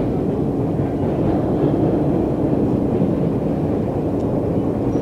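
MBTA Orange Line subway train running at speed, heard from inside the car: a steady rumble of wheels on rail with a faint steady hum.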